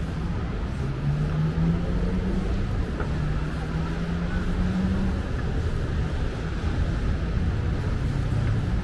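City street traffic: a steady rumble of passing cars. About a second in, one vehicle's engine climbs steadily in pitch for several seconds as it accelerates.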